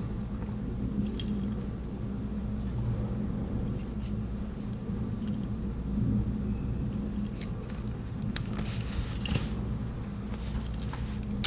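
Swiss Army knives being handled: scattered small metallic clicks and brief scrapes as the tools are worked, over a steady low hum.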